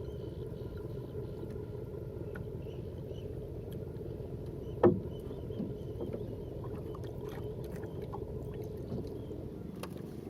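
Small fishing boat moving on open water, with a steady low rush of water and hull noise and a single sharp knock about five seconds in.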